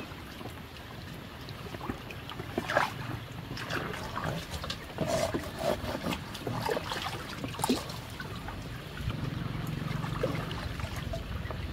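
Muddy flood water splashing and sloshing as an old rubber tyre is hauled out of it and emptied, with a run of irregular splashes and knocks through the middle.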